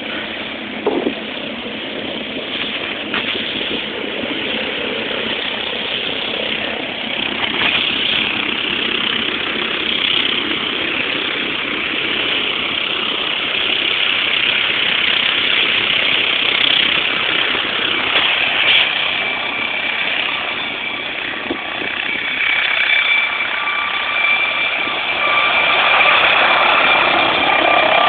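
Air ambulance helicopter running on the ground as its rotor powers up for take-off: a steady turbine-and-rotor noise that grows louder, with a high steady whine coming in about two-thirds of the way through.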